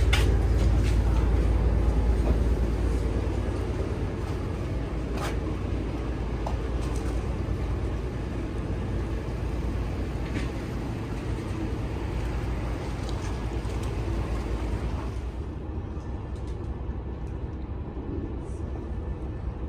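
Low engine rumble of a vehicle, slowly fading, with people talking in the background and a few sharp clicks.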